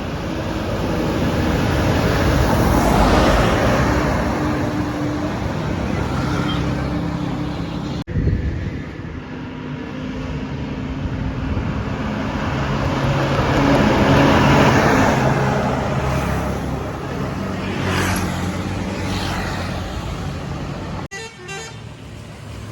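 Tour buses passing on a highway, their engine and tyre noise swelling up and fading away twice, with horns sounding. The sound breaks off abruptly about eight seconds in and again near the end.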